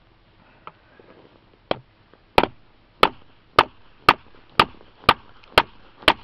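Mallet blows on the spine of a G-10 and titanium composite knife, batoning its blade into a wooden board. Two light taps, then a steady run of eight sharp blows about two a second.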